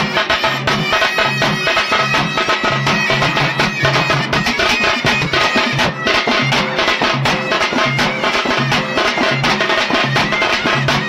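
Traditional folk music: a reedy wind instrument holding sustained notes over fast, steady drumming with a repeating low drum beat.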